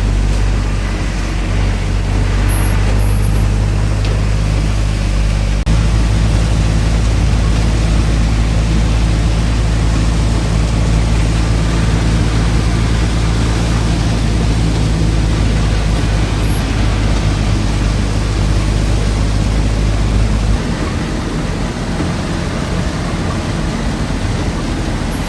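Car engine and road noise from inside a moving car: a steady low hum whose pitch shifts abruptly about six seconds in and again near the end, as the engine speed changes.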